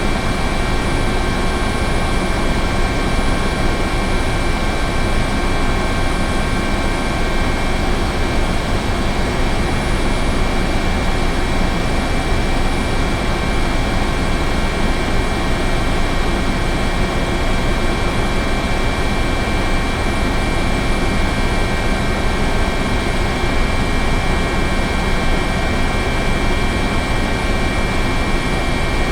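Helicopter running steadily: a dense, unchanging rotor and engine noise with several steady high-pitched whining tones over it.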